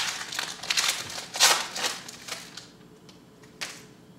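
Plastic wrapper of a 2010 Panini Classics football card pack crinkling and tearing as it is ripped open, a run of rustles over the first two and a half seconds, loudest at the start and about a second and a half in. A single short tap near the end.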